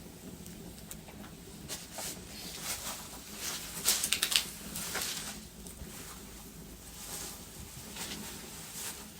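Wood fire crackling, with irregular snaps and a quick cluster of sharper pops about four seconds in.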